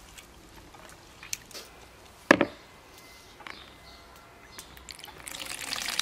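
A few light knocks and clinks of cooking utensils, with one sharp knock about two seconds in, then liquid starts pouring in a steady stream near the end.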